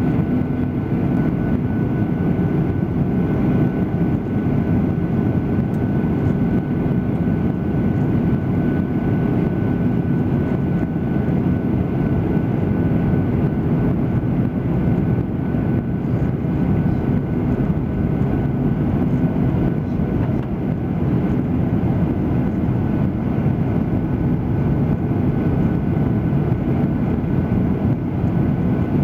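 Airliner cabin noise heard from inside the plane in flight: the steady drone of the engines and rushing air, with a faint steady high whine.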